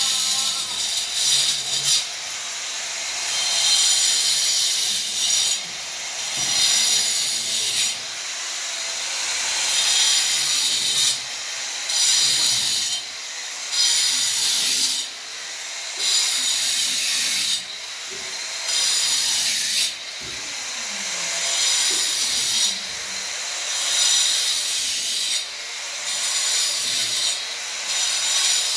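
Corded angle grinder cutting in repeated passes of one to two seconds, a loud high grinding whine that drops back briefly between passes, about every two seconds.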